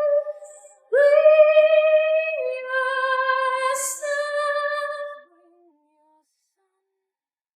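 Isolated female backing vocals singing long held notes without words. The pitch steps down partway, a brief hiss comes near four seconds in, and the singing ends about five seconds in.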